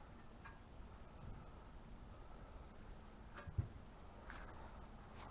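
Crickets chirring in a steady high-pitched chorus, with a single soft knock about three and a half seconds in.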